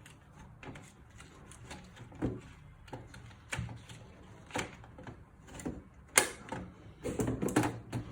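Irregular plastic clicks and knocks of a toy cash register being handled, keys pressed and pieces set down, about once a second. The loudest knock comes a little after six seconds in, followed by a quick run of clicks near the end.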